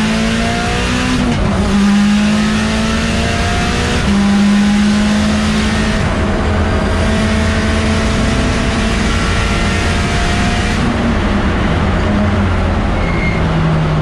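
Mitsubishi Lancer Evolution X race car's turbocharged four-cylinder engine heard from inside the stripped cabin, pulling hard with its pitch climbing, breaking briefly at gear changes about a second and four seconds in. About eleven seconds in the engine note eases off.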